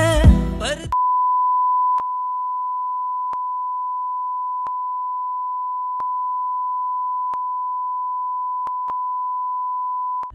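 Song music breaks off about a second in and gives way to one long, steady electronic beep tone with faint clicks at a slow, even pace.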